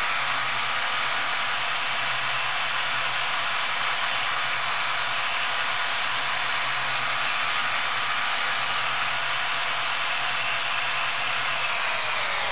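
Metal lathe running steadily while its cutting tool turns down a metal bar, an even whirring hiss over a low steady hum. Near the end the machine's pitch begins to drop.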